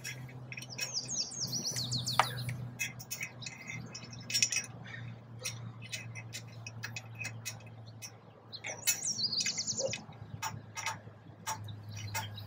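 Songbirds singing two short, high trilled phrases, one about a second in and one about nine seconds in. Under them are scattered small sharp metal clicks from an Allen wrench turning bolts into drop-in T-nuts on a roof-rack rail, with a steady low hum beneath.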